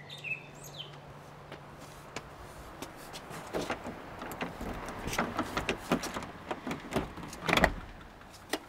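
A front door's handle and lock being worked: a run of clicks and rattles, with a louder clack near the end as the door comes open.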